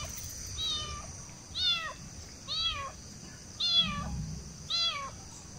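A cat meowing over and over, a short high call about once a second.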